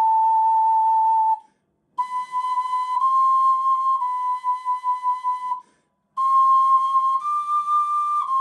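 Ocarina playing three short phrases of held notes with brief breaks between them, each phrase stepping up a note and back down: a pitch exercise on rising and falling steps such as sol to la and la-ti-la.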